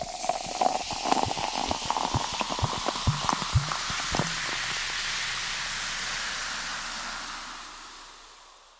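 Fizzy soda pop being poured into a glass: splashing with a tone that rises slowly as the glass fills, then a steady fizzing of bubbles that fades out near the end.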